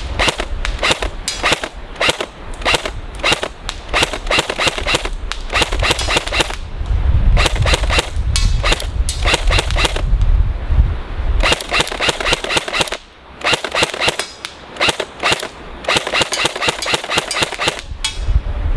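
APS AUG A3 electric airsoft rifle firing semi-automatic, shot after shot at about three a second in runs with short pauses. The trigger is stiff and slow to come back, which holds back how fast it can be fired. Low wind rumble sits on the microphone underneath.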